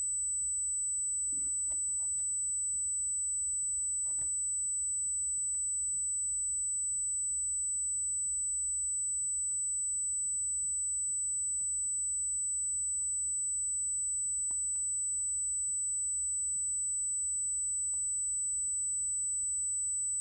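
Steady high-pitched electronic ringing tone, a fault in the recording's audio setup, with a low hum beneath it. A few faint scattered clicks come from hands handling a shrink-wrapped trading card box.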